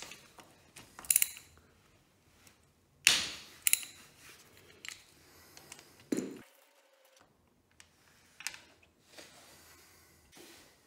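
Ratchet and socket on the 12mm oil drain bolt of a dirt bike engine: a handful of separate sharp metallic clicks and clinks as the bolt is loosened, the loudest about three seconds in.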